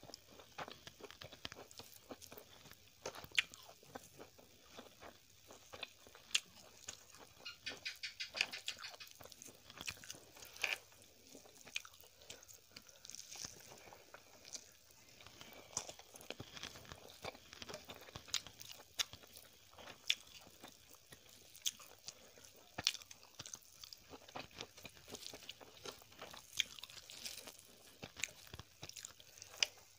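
Close-miked chewing of a person eating rice with cooked greens by hand: soft crunching with a steady run of wet mouth clicks, and a quick series of clicks about eight seconds in.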